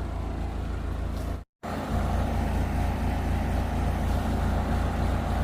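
Backhoe engine running steadily at a low, even hum, with a brief total break in the sound about a second and a half in.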